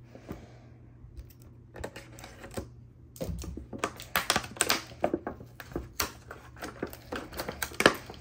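Thin clear plastic blister tray crinkling and crackling in the hands while a taped-in plastic sword is picked and pulled free of its scotch tape. There are scattered crackles at first, then a dense run of crackles from about three seconds in.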